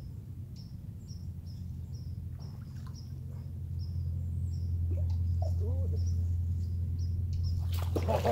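A small bird chirping over and over, about two to three chirps a second, over a steady low rumble. Near the end a hooked bass splashes and thrashes at the bank's edge.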